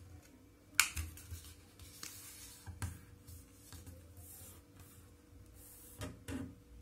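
A sheet of origami paper being folded and its crease pressed flat by hand: faint rubbing and rustling, with a sharp paper click a little under a second in and a few soft knocks.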